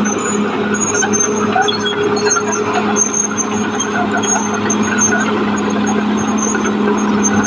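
Caterpillar D6R XL bulldozer running steadily: an even diesel engine hum with the clatter of the tracks and scattered short, high squeaks from the steel undercarriage.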